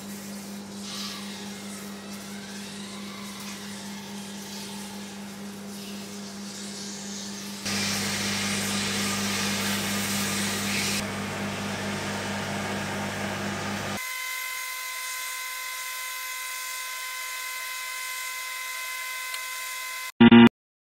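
Microwave oven running: a steady electrical hum with fan noise that shifts abruptly about 8 s in and again about 14 s in, the later part a higher steady whine. A short loud sound comes near the end.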